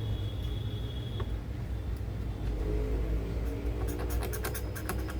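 Steady low whir of bench equipment. About four seconds in comes a quick run of short scraping clicks, as a blade scratches the solder mask off a laptop circuit board to bare the ground copper.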